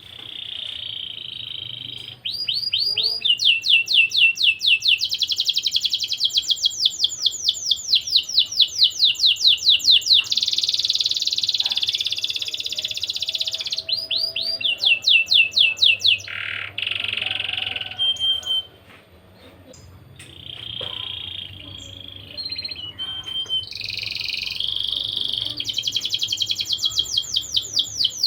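Domestic canary singing in full song: long, fast trills of repeated chirping notes and buzzing rolls, changing from one phrase to the next, with a short lull about two-thirds of the way through.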